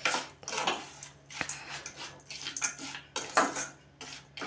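A spoon stirring and scraping around an aluminium kadai, mixing fried peanuts through a thick tempering, in repeated uneven strokes. There is a sharp clink against the pan about one and a half seconds in.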